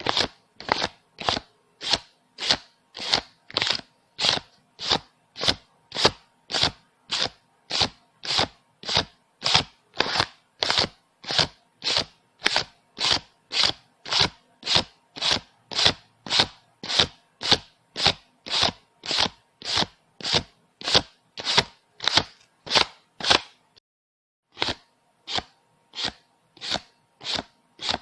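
Paper banknotes being counted one at a time, each bill giving a short crisp flick, about two a second in an even rhythm. The rhythm breaks off for about a second near the end, then resumes.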